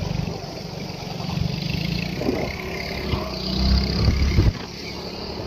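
An engine running steadily, growing louder for a moment, then cutting off abruptly about four and a half seconds in.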